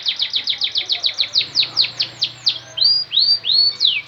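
Domestic canary singing a rolling series of quick downward-sweeping notes, about six a second, which slow to about three a second. Past the middle come three rising notes, followed by slower falling sweeps.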